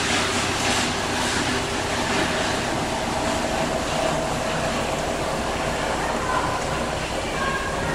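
Battery recycling line running: a steady, loud machine noise from the crusher, vibrating screen, conveyors and aspiration system, with a continuous low hum.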